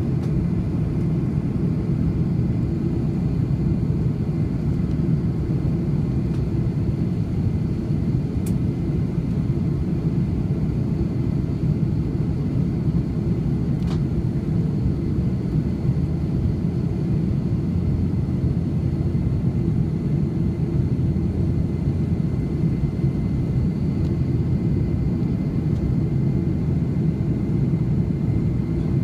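Steady low roar of a jet airliner's cabin on approach to landing: engine and airflow noise heard from a window seat, with a faint steady high whine.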